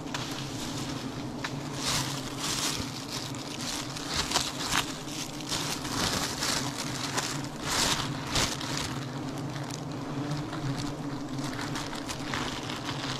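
Honeybees buzzing steadily around an open wild comb as it is cut, with repeated rustling and crackling from handling a plastic bag at the comb.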